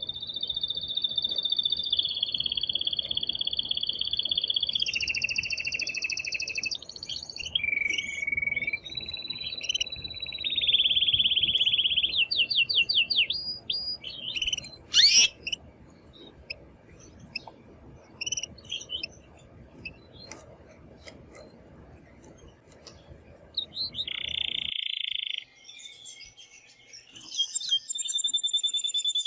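Male canary singing loud, excited song: long held whistled rolls and fast trills, then a stretch of scattered short chirps before the full song picks up again near the end.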